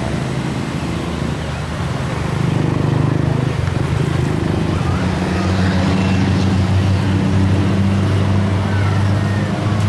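Twin turboprop engines and propellers of a de Havilland Canada DHC-6 Twin Otter running on the runway: a steady low drone that grows louder and stronger about halfway through.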